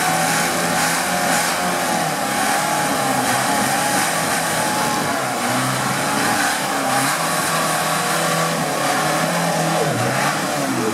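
Off-road trial buggy's engine revving up and down again and again as the buggy crawls up and over large boulders.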